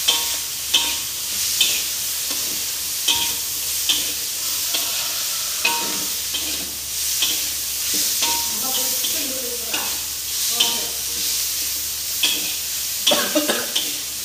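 Food frying in oil in a metal wok with a steady sizzle, while a spatula scrapes and knocks against the wok about once a second. A quick run of several strokes comes near the end.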